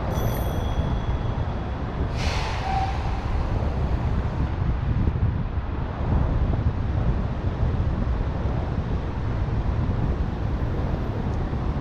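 Wind buffeting the microphone of a camera on a moving bicycle, over steady traffic and road noise. A brief high squeal comes at the start, and a sharp hiss about two seconds in.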